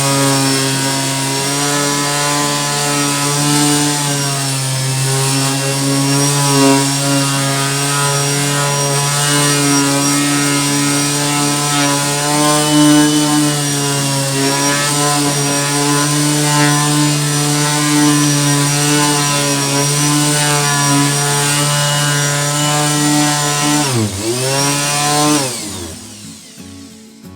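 Parkside PEXS 270 C3 270-watt random orbital sander with a 120-grit disc, running steadily while sanding rough-sawn wood: a steady motor hum whose pitch wavers slightly under load. Near the end the pitch drops and the sander winds down to a stop.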